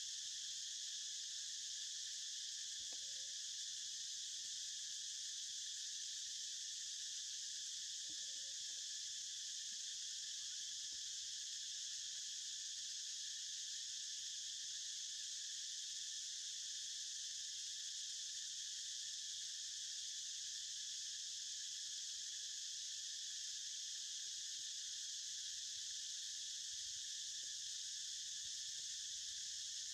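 Steady, high-pitched insect chorus that continues without a break.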